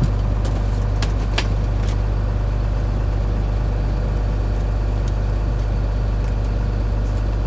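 A tool truck's engine idling in a steady low drone, heard from inside the truck's box, with a few light clicks in the first two seconds.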